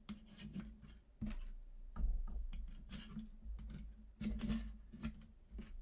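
Small plastic parts of a lemon-battery clock kit being handled and fitted together: irregular light clicks and taps, with a few dull knocks.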